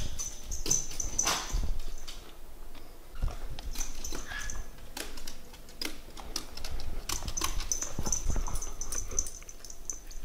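A small dog's claws clicking and tapping irregularly on hardwood stairs as it walks down them.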